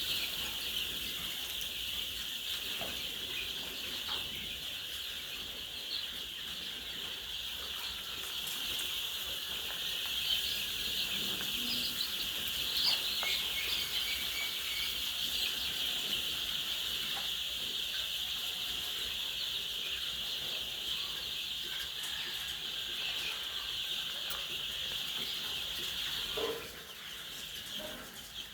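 A flock of chickens in a poultry house calling continuously, a dense, steady high chatter with single calls standing out here and there. It gets somewhat quieter near the end.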